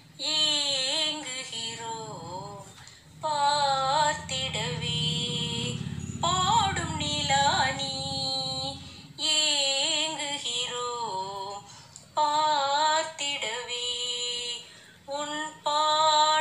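A woman singing Tamil lyrics to a film-song melody, unaccompanied, in short phrases with pauses between them and sliding ornamented pitch.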